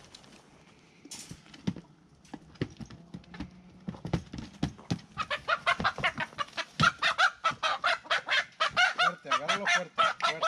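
Chickens clucking and squawking in a fast run of calls, several a second, starting about halfway in, as a rooster is caught by hand in a wire cage; a few light knocks come before.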